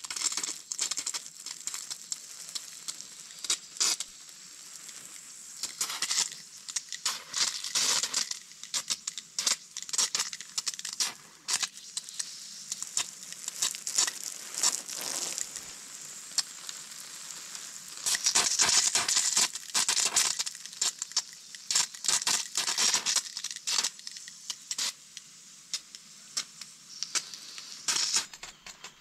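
Water sprayed from a hose pattering and hissing onto freshly dug dry soil and plants. It swells and fades as the spray sweeps across the bed, and is loudest about two-thirds of the way through.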